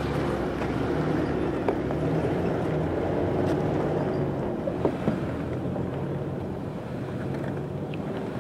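An SUV's engine running at low speed as it crawls over a rocky trail, a steady low drone with the noise of tyres on stones. There are a couple of sharp clicks near the middle.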